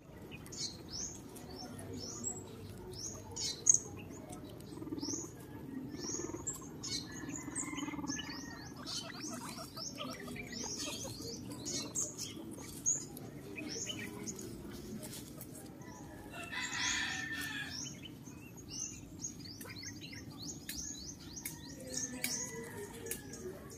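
Many short, high chirps, several a second, each falling quickly in pitch, with scattered sharp clicks; a louder rustling burst comes about seventeen seconds in.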